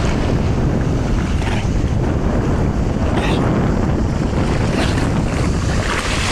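Wind buffeting the microphone over sea water splashing and lapping around a dog wading through the shallows, with a few brief splashes.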